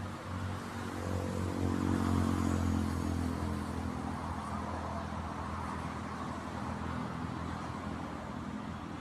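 A motor vehicle engine running with a steady low drone, a little louder about two seconds in.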